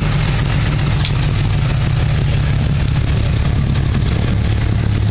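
Pickup truck engine running at low speed as it rolls past towing a trailer, a steady low rumble.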